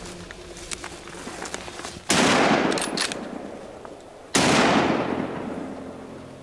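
Two hunting-rifle shots a little over two seconds apart, each a sharp crack followed by a long echo that fades away through the forest.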